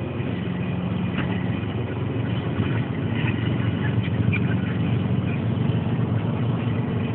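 Passenger van driving along a road, heard from inside the cabin: the engine and road noise make a steady low drone.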